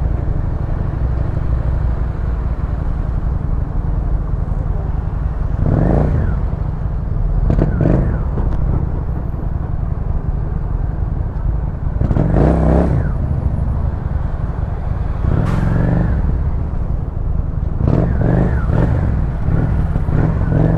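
Motorcycle engine running under a steady low rumble, revving up briefly several times as the bike moves off and rolls through slow traffic.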